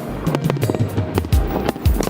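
Fireworks going off in quick succession, rapid sharp cracks with two deep booms in the second half, over music playing.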